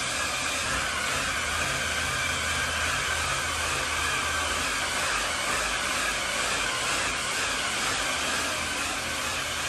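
Steady, even machine noise in an engine dyno cell, a continuous whooshing running sound with a low hum beneath it.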